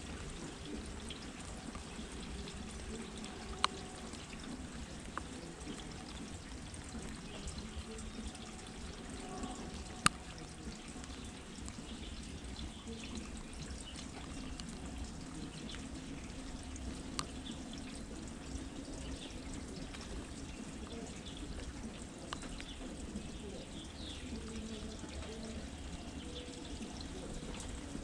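Rain with water pouring and trickling steadily, and a few sharp drips or taps, the loudest about ten seconds in.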